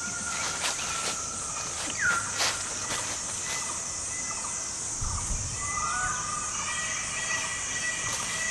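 Forest ambience: a steady high insect drone with birds whistling, including a falling whistle about two seconds in. A couple of sharp snaps come about two seconds in, and there is a brief low rumble about five seconds in.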